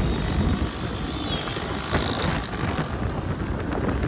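Royal Enfield Bullet motorcycle running at speed, a steady low rumble of engine and wind buffeting the microphone, with a brief hiss about two seconds in.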